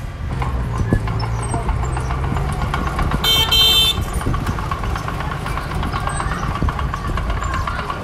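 Diesel engine of heavy earthmoving equipment running steadily, with a brief shrill horn-like tone a little past three seconds in.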